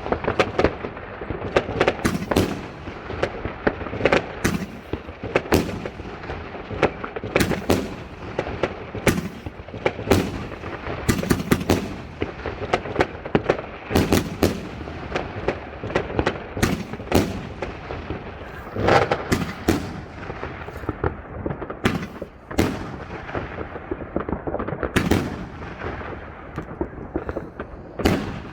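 Fireworks going off continuously: many sharp bangs and cracks, some in quick rapid-fire clusters, over a steady crackling rumble of further explosions.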